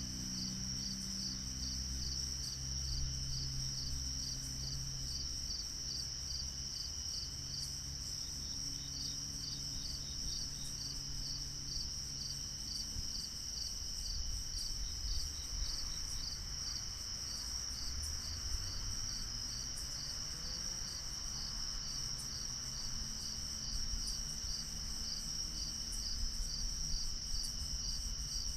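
Night insects, crickets, chirping steadily: a constant high trill with a regular chirp about two or three times a second. A low hum runs underneath and weakens around the middle.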